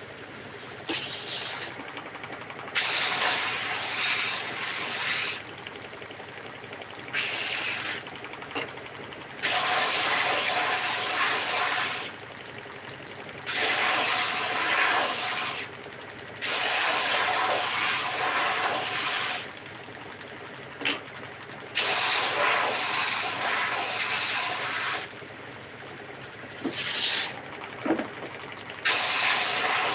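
Bench-mounted belt sander running, with short wooden strips pressed against the moving belt again and again to sand off old varnish. Each pass brings a loud hissing grind lasting two to three seconds, about eight times, and between passes only the quieter steady run of the machine.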